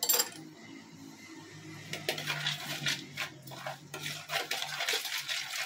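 A spoon stirring a wet seasoning mix in a plastic bowl, with quick repeated clinks and scrapes against the bowl's sides, starting about two seconds in.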